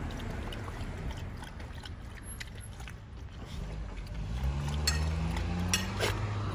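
Low outdoor rumble on the microphone, joined about four seconds in by a low, steady engine hum that rises slightly, with a few sharp clicks near the end.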